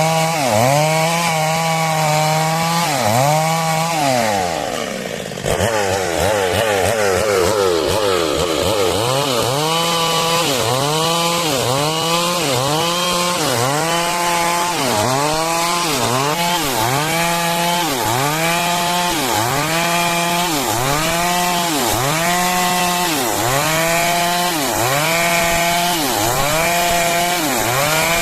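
Stihl MS 382 two-stroke chainsaw running at high revs while ripping wood into boards. Its pitch dips and recovers about once a second as the chain bites, and it sags lower for a moment about four seconds in before picking back up.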